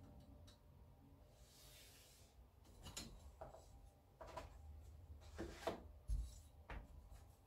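Faint handling of mat board on a mat-cutting table: a soft scrape about two seconds in, then a handful of light knocks and taps as the board is marked with a pencil and moved, the loudest about six seconds in.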